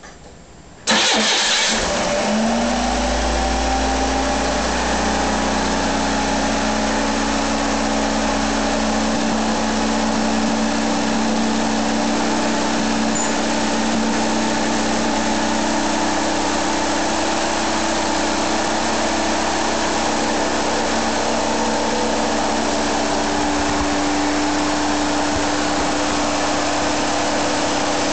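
Fuel-injected Iron Duke 151 cu in four-cylinder engine starting suddenly about a second in. Its note climbs briefly, then settles into a steady idle.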